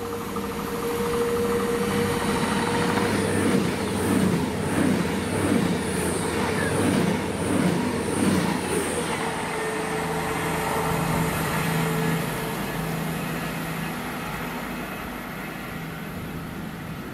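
A train passing at speed, with a quick run of rhythmic wheel clicks over several seconds and a steady hum, building up and then slowly fading away.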